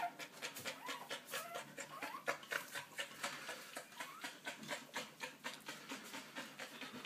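A mother dog panting in quick, steady breaths, with a few faint high squeaks from her newborn puppies now and then.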